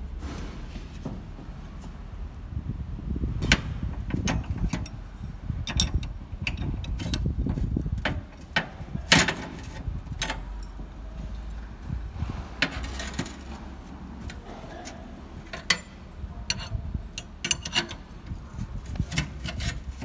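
Steel wrenches clinking and scraping on a very tight hydraulic hose fitting and against a perforated steel deck plate as the fitting is worked loose, with sharp metallic clicks every second or two. A low rumble runs underneath through the first half.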